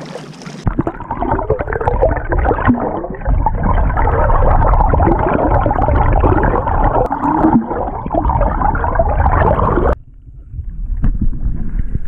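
Loud, muffled rushing and gurgling of water heard through a camera held underwater in its housing, which cuts off suddenly about ten seconds in. After that comes quieter water and wind noise above the surface.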